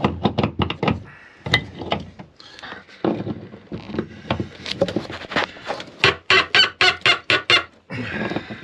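Bronze seacock valve being tightened onto its threaded through-hull skin fitting with a pipe wrench. The threads squeak and creak with each turn, ending in a fast, loud run of about five squeaks a second.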